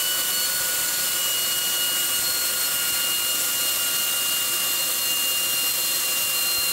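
Pneumatic wrench running steadily, a loud air hiss with a high whine, spinning out the last bolt holding the 4L80E transmission.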